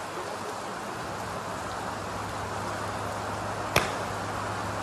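A Mizuno MP-33 iron strikes a golf ball once near the end, a single sharp crack of the clubface on the ball. Steady rain hisses throughout, over a low steady hum.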